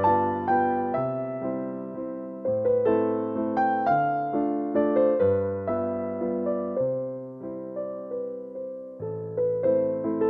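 Background music: a piano or electric piano playing a gentle melody over low chords at an even pace.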